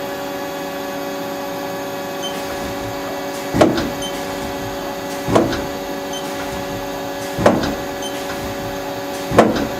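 Turret of a 2007 Haas SL-30T CNC lathe indexing from station to station: four short clunks about two seconds apart, each a brief whir ending in a knock as the turret locks, over the machine's steady hum.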